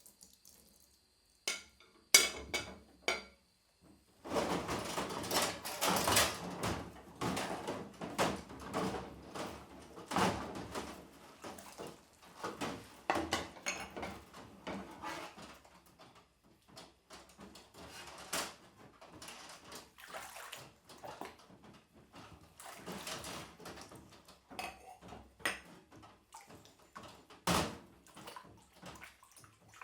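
Dishes being washed by hand in a kitchen sink: water splashing while plates, glasses and cutlery clatter and knock together. A few sharp clicks come about two seconds in. Dense clatter and splashing starts about four seconds in, thins out later, and there is one louder knock near the end.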